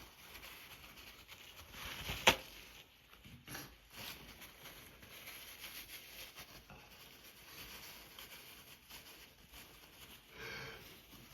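Tissue rustling and breathing between allergy sneezes, with one very short, sharp burst about two seconds in.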